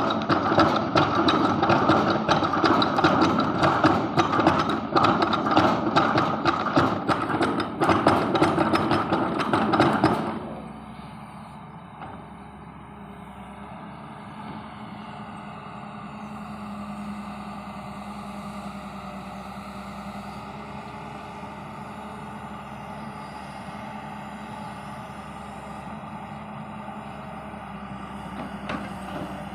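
Excavator working: about ten seconds of loud, rapid clattering over its running engine, then the noise drops suddenly to a steady engine hum.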